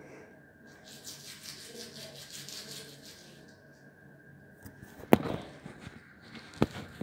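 Toothbrush scrubbing teeth in quick, rhythmic strokes. About five seconds in comes a sharp knock, and a smaller one follows near the end.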